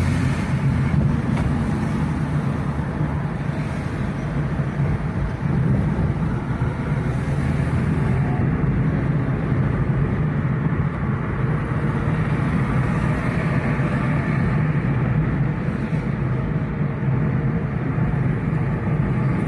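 Engine and tyre noise of a moving car, heard from inside its cabin: a steady low hum.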